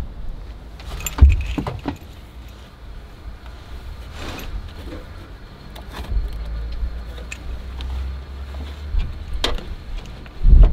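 Metal links of a chain-type oil filter wrench clinking and rattling as it is handled and wrapped around a suspension accumulator sphere, with scattered sharp clicks and dull knocks.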